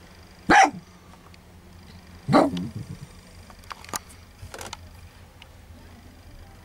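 A small dog barking twice, about two seconds apart; the second bark is a little longer.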